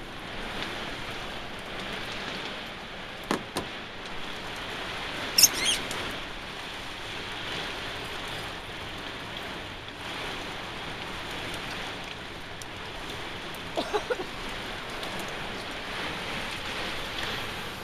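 Heavy rain hissing steadily in a severe thunderstorm. It is broken by a couple of short knocks about three seconds in, a brief high squeak about five seconds in, and a few quick knocks near fourteen seconds.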